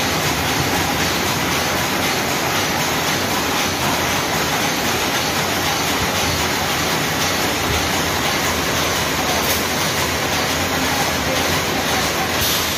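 Steady, even rushing noise of running workshop machinery, with no distinct tone, rhythm or change.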